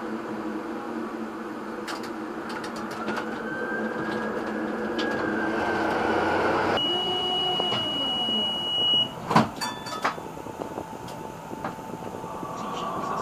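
Tram running on street track, heard from the driver's cab: the traction motor's whine slowly rises and falls, with clicks and rattles over the rails. About seven seconds in a steady high tone sounds for about two seconds, then a single loud knock, and near the end the whine rises again as the tram speeds up.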